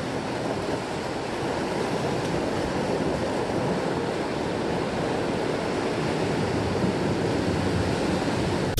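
Ocean waves breaking and washing over a rocky shoreline: a steady, even rush of surf noise.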